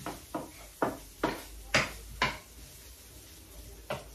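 Wooden spatula knocking against a frying pan while stirring onion and garlic as they sauté: six sharp knocks about half a second apart, then one more near the end.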